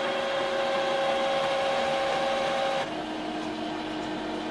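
Epson Expression Home XP-5100 inkjet printer running its internal mechanism with a steady whine during the first ink initialization after new cartridges are installed. About three seconds in the whine drops to a lower steady tone.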